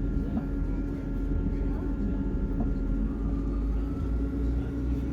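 Class 158 diesel multiple unit running along the line: a steady low rumble of engine and running gear with a constant hum, and a faint whine that rises about three seconds in.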